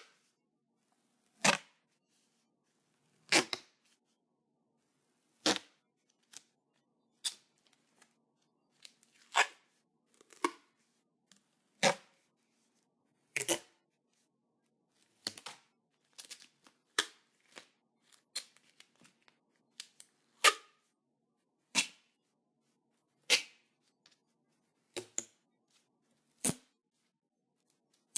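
Duct tape being pulled off the roll and ripped in short, sharp strips, each rip a brief tearing burst, about one every one to two seconds with quiet gaps between, some in quick clusters.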